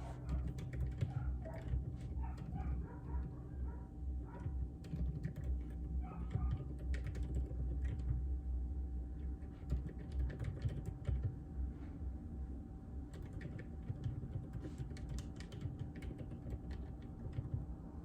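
Typing on a JJK84 mechanical keyboard with Outemu Silent Peach linear switches: a fast, uneven run of key clicks with short pauses.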